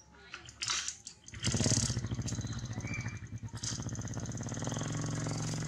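A small engine running steadily, coming in about a second and a half in and staying loud to the end, with a fast even pulse. Before it come a few short rustling scrapes.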